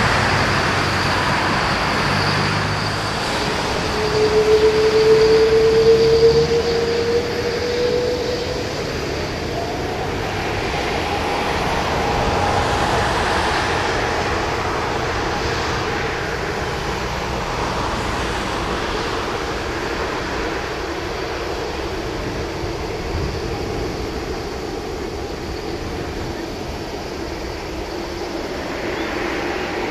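Boeing 777-300's Rolls-Royce Trent 800 turbofans running as the airliner taxis: a steady jet rumble and hiss. A louder whine rises slightly in pitch from about four to eight seconds in.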